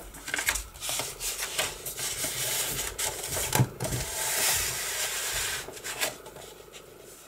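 Sheets of scrapbook paper being handled and slid across a paper trimmer's base: rustling and rubbing with small taps. The rubbing is most even about four seconds in and dies down near the end.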